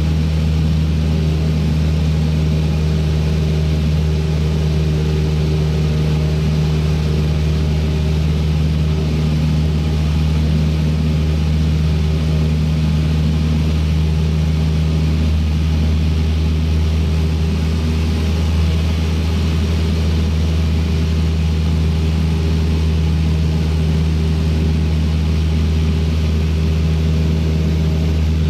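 Single-engine Cessna's piston engine and propeller running steadily in cruise, heard inside the cabin as a constant low drone.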